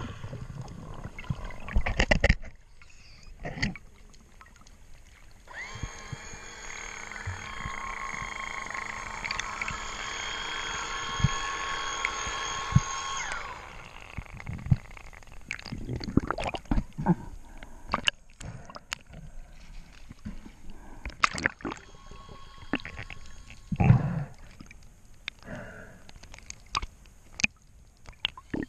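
Underwater sound around snorkelers: water sloshing, bubbles and scattered knocks. From about 6 s to 13 s a small motor whines steadily, rising in pitch as it starts and falling away as it stops.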